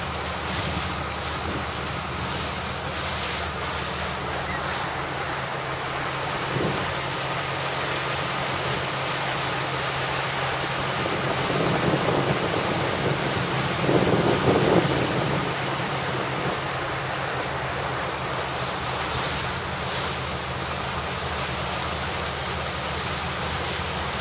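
Sports cruiser under way: a steady low engine drone under wind buffeting the microphone and water rushing past the hull, swelling a little about halfway through.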